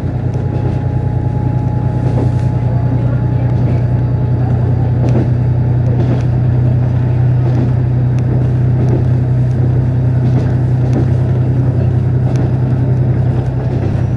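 KiHa 48 diesel railcar under way, heard from inside the passenger cabin: a steady low engine drone with scattered clicks and rattles from the running train.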